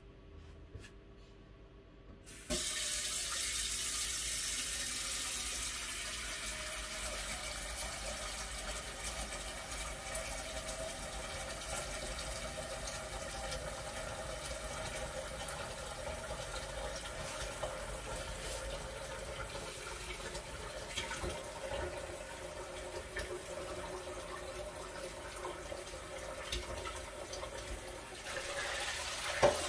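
Water tap running steadily into a sink, the flow starting suddenly about two and a half seconds in, with a couple of sharp clicks near the end.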